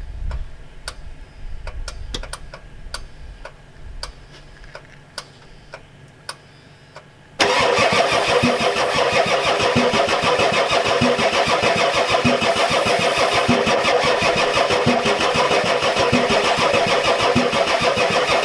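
Starter cranking the 7.3L IDI diesel V8 of a 1993 Ford F-250, starting suddenly about seven seconds in, with a steady beat of compression strokes a little under twice a second. The hard-starting engine does not catch, a fault the owner puts down to a weak injection pump not getting fuel to the new injectors. A few faint clicks come before it.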